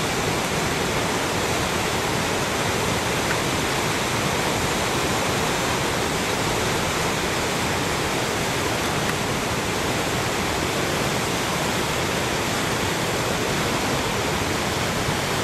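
Steady rush of whitewater rapids pouring through an artificial slalom channel, an even roar of churning water with no break.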